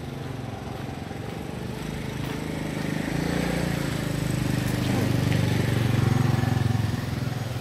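Motorcycle engine running as it comes up and passes close by, growing louder to a peak about six seconds in, then easing off.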